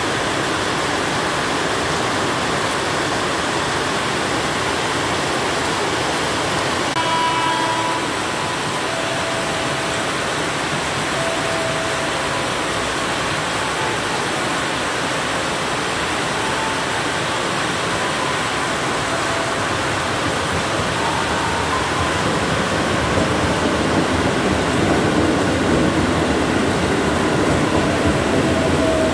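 Heavy rain pouring steadily on the station and tracks. A brief high tone sounds about 7 s in, and in the last few seconds a KRL Commuterline electric multiple-unit train grows louder as it runs past alongside, with a motor whine over the rain.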